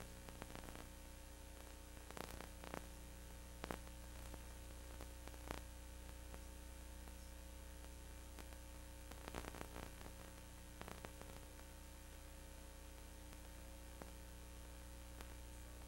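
Low steady electrical mains hum with a faint hiss and a few faint clicks.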